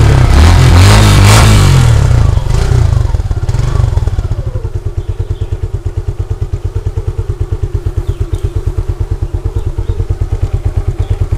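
Motorcycle engine running loud for the first few seconds, its pitch falling about three to four seconds in, then settling into a steady, evenly pulsing idle.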